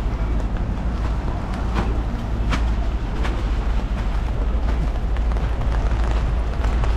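City street ambience in the rain: a steady low rumble under an even wet hiss, with a few sharp ticks between about one and a half and three and a half seconds in.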